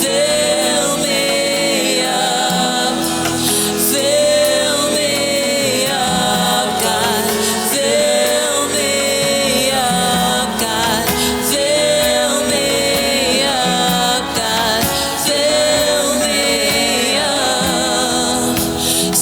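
Gospel worship song: singing over an instrumental backing, in phrases of about two seconds.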